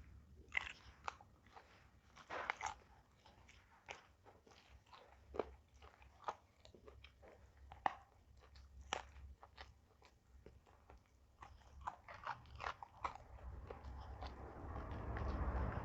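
Close-miked eating: irregular sharp crunches and chewing as raw vegetables are bitten and chewed. A noisy hiss swells near the end.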